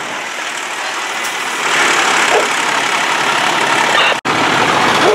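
Diesel engine of a Pierce tractor-drawn aerial ladder fire truck running as the truck rolls slowly past close by. It grows louder about two seconds in, and the audio cuts out for an instant near the end.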